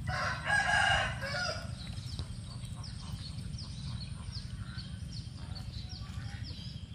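A rooster crowing once for about a second and a half, followed by a small bird giving short falling high chirps about twice a second, over a low steady rumble.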